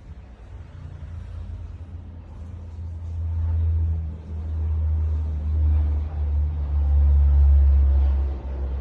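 Thunder rumbling low during a storm, swelling about three seconds in and loudest near the end.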